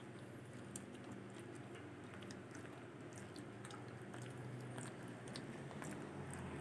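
Dachshund gnawing a chew stick: faint crunching and scattered small clicks of teeth on the stick.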